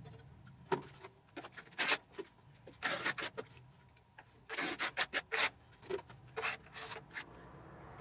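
Bricklaying on a brick chimney: irregular scraping strokes of a trowel and bricks rubbing against mortar, some short and some drawn out over about half a second.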